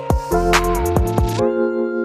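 Background music with a drum beat and heavy bass; about one and a half seconds in the drums and bass drop out, leaving held keyboard chords.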